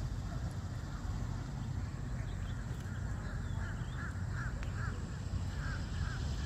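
A bird calling in a quick series of about seven short calls over a steady low rumble.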